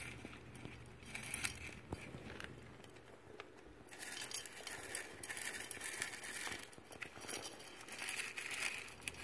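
Young hamsters scurrying and digging through crinkled paper bedding: a faint papery rustling and crackling that grows busier about four seconds in.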